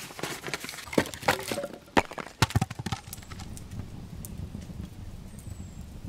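A quick, irregular run of sharp clicks and knocks over the first three seconds, then a steady low background noise with a brief faint high whistle near the end.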